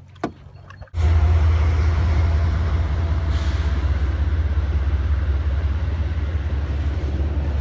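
Passenger train crossing a railway bridge: a loud, steady rumble that starts suddenly about a second in.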